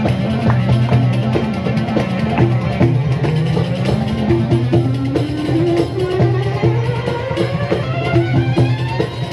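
Live band music with a steady drum rhythm under it, and a melodic line that climbs steadily in pitch from about three seconds in.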